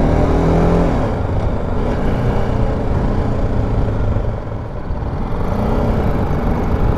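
BMW G310 GS single-cylinder motorcycle engine running under way, with wind and road noise. Its note rises briefly at the start, eases off, then climbs again about two thirds of the way in as the bike accelerates.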